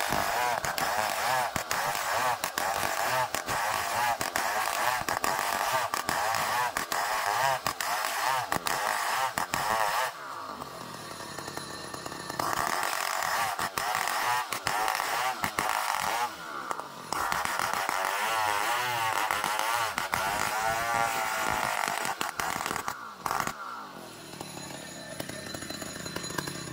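Engine of a homemade motorised saw running hard while sawing ulin (Bornean ironwood), its pitch wavering under the load. It eases off for a couple of seconds about ten seconds in, and briefly twice more later.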